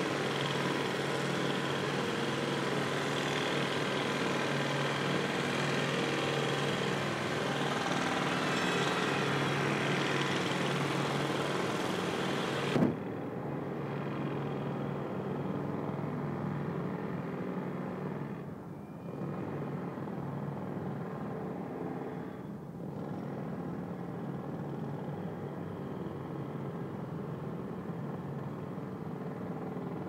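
Jackhammering at a construction site: a dense, steady hammering racket over a low steady drone. About thirteen seconds in it cuts off with a sharp knock, and a quieter, duller mechanical drone carries on, dipping briefly twice.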